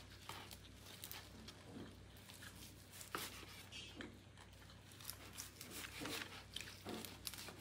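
Long carving knife slicing deep-fried turkey on a wooden cutting board: faint, scattered clicks and taps of the blade on the board as meat and crisp skin are cut and pulled apart, over a low steady hum.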